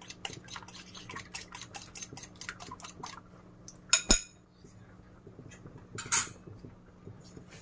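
A spoon or fork clicks quickly against a glass bowl, about five strokes a second, as eggs are beaten; the beating stops about three seconds in. Two sharp clinks follow, then a short burst of noise as the beaten egg is poured into hot oil in a kadai.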